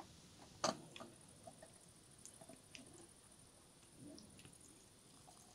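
A brass samovar is set down on a wooden table with one sharp knock about a second in, followed by light clicks and clinks of brass cups. Near the end there is a faint trickle of tea being poured into a cup.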